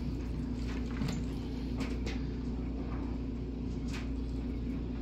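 Steady low machine hum, with a few faint light clicks over it.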